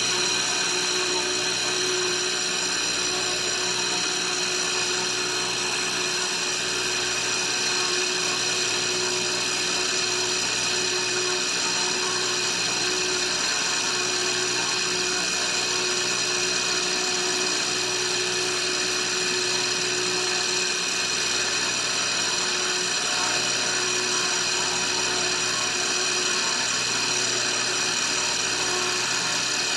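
Electric water pump running steadily: a constant hum and whir with a high whine over it.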